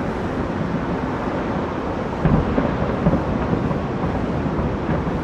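Distant fireworks going off, a continuous low rumble with louder bangs about two and three seconds in, as picked up by a Hi8 camcorder's built-in microphone.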